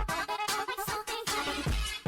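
Electronic dance music. The heavy kick drum drops out for a melodic break and comes back at the very end.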